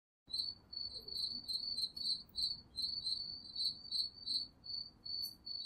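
Crickets chirping in short, evenly repeated pulses, about two to three chirps a second, starting about a quarter second in.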